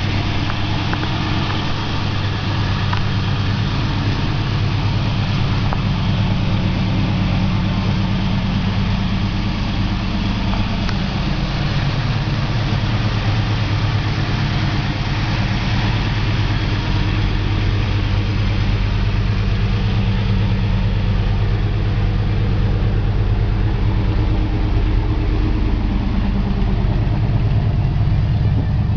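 1979 Pontiac Trans Am's 403 cubic-inch V8 idling steadily through its dual exhaust, with a small change in engine speed now and then.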